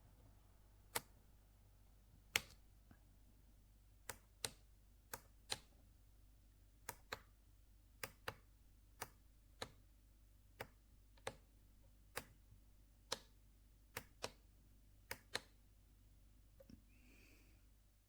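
About twenty sharp clicks, irregularly spaced and often in quick pairs, against near silence: plastic buttons being pressed on the sunrise alarm clock.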